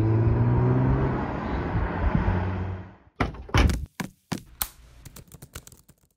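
Car engine running, its pitch dropping early on and then holding steady before it dies away about three seconds in. A car door then shuts with a heavy thump, followed by a few more thumps and a run of lighter, quicker knocks.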